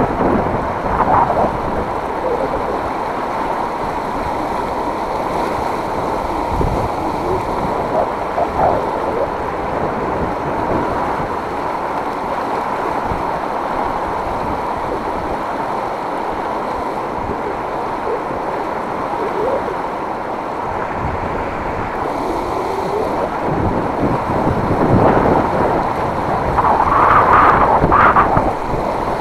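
Steady rush of river water, with wind on the microphone; the sound swells briefly near the end.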